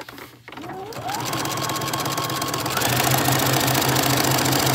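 Electric sewing machine starting up and stitching fast along a zipper. Its motor whine rises over the first second, then it runs at a steady, rapid stitching speed.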